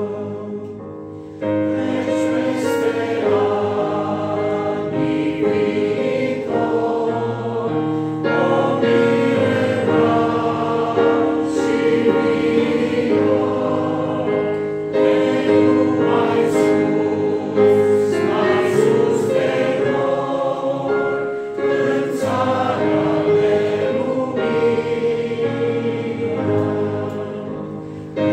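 Church congregation singing a hymn together in Romanian, with long held notes phrase after phrase and a brief pause about a second in.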